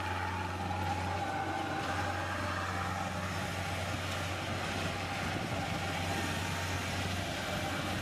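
Kubota PRO588I-G combine harvester's diesel engine running with a steady low hum.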